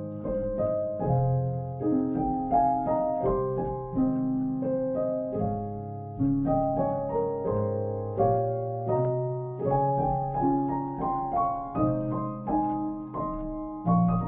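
Background music: solo piano playing a gentle melody, notes struck a few per second and each fading away.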